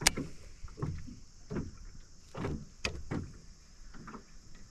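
Knocks, thuds and water sloshes in a small aluminium tinny: two sharp clicks, one at the start and one about three seconds in, among a few softer low thumps.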